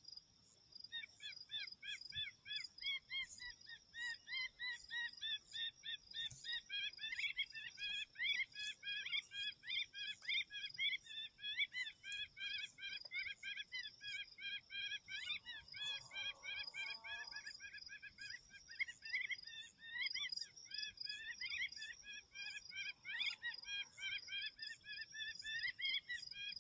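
Bird distress call played through an electronic predator caller: rapid, repeated high squealing chirps that start about a second in and carry on without a break, over a steady high insect drone.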